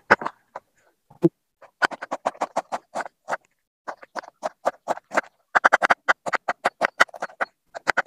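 Kitchen knife chopping cabbage finely on a wooden cutting board: quick runs of about seven chops a second, starting about two seconds in and broken by short pauses.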